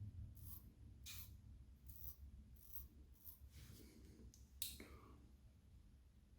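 Faint, short scraping strokes of a King C. Gillette double-edge safety razor cutting lathered stubble, a series of separate strokes spaced about half a second to a second apart, the loudest a little past halfway.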